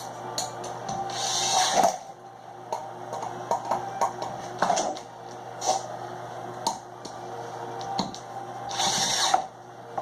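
Screws being driven down to tighten a ceiling fan's mounting base. There are two short bursts of driving, about a second in and near the end, with small clicks and knocks of metal parts in between.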